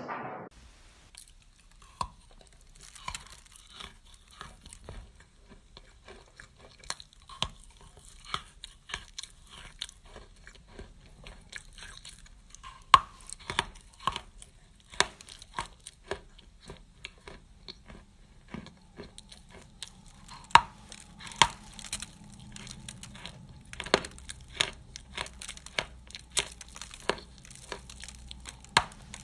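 Close-miked eating: irregular crunches, crackles and clicks of chewing, with some tearing sounds, coming more densely in the second half.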